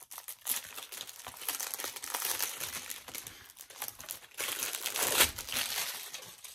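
Plastic shrink-wrap crinkling as it is torn and peeled off a Blu-ray case, with a louder stretch of crackling about five seconds in.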